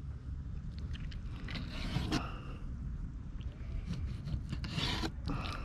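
Fillet knife cutting and scraping through a fish fillet in several short, irregular strokes, working through the pin bones and skin.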